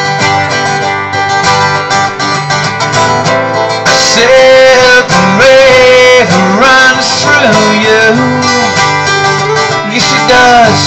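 Live acoustic guitars played by a duo, an instrumental passage between sung lines, with a melody line that bends and slides over the chords from about four seconds in.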